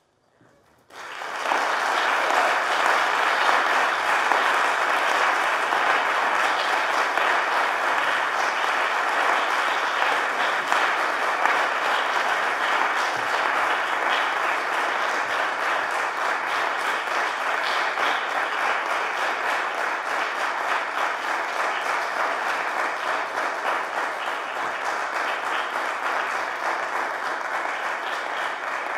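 Audience applauding: many people clapping, starting suddenly about a second in and holding steady, easing off slightly toward the end.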